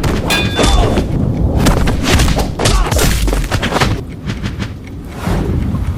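A rapid run of heavy booms and thuds, packed close together for the first three seconds or so, easing off about four seconds in before a low rumble swells near the end.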